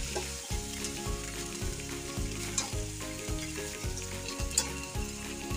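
Chicken pieces and sliced green chillies sizzling in hot oil in a non-stick frying pan, with a couple of light clicks from metal tongs as pieces are placed. Under the sizzle runs a faint low pulse, repeating a little less than twice a second.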